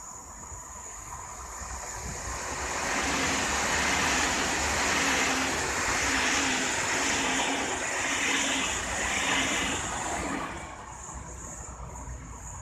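Alstom ED250 Pendolino electric multiple unit passing on the track: a rushing train noise that swells about two seconds in, stays loud while the cars go by, then fades near the end as it draws away.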